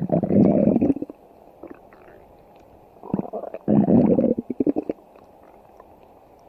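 Stomach growling: a gurgling rumble for about a second at the start, then a second, longer bout from about three seconds in that ends in a run of quick pops.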